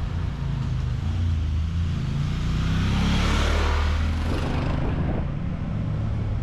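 A motor vehicle passing close by on the road, its engine and tyre noise swelling to a peak about three seconds in and then fading, over a steady low rumble.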